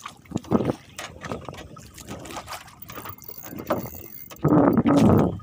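Choppy sea water sloshing and slapping against a small boat's hull, with irregular knocks, and a much louder rush of noise for about a second near the end.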